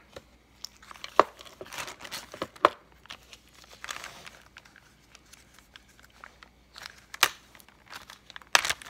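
Packaging being crinkled and rustled by hand, with three sharp clicks: one about a second in, one near three seconds, and one near the end.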